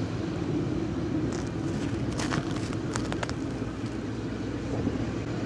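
Distant Sherp amphibious ATVs' diesel engines running steadily as the vehicles crawl over river ice, with a handful of sharp clicks about two to three seconds in.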